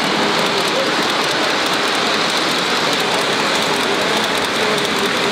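G-scale model freight train of tank cars rolling past on the track, giving a steady, dense rattle of wheels running over the rails.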